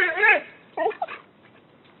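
A dog vocalizing: a drawn-out, wavering, pitched call that ends about half a second in, followed by two short calls near the one-second mark.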